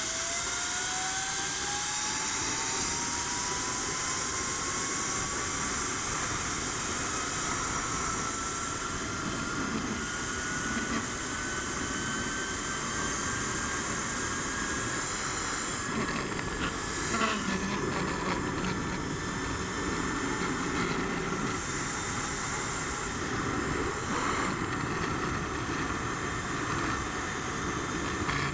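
Zip-line trolley pulleys running along the steel cable: a thin whine that rises steadily in pitch as speed builds and levels off about two-thirds of the way through, over a steady rush of wind on the microphone. A few faint knocks come about halfway through.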